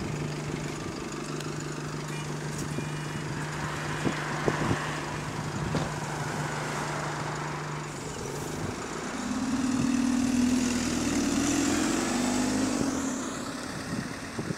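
Single-deck diesel bus engine idling steadily at the stop, then pulling away about nine seconds in, the engine note rising as it accelerates and fading as the bus leaves. Its exhaust has been repaired, so it runs without the rapid ticking exhaust blow.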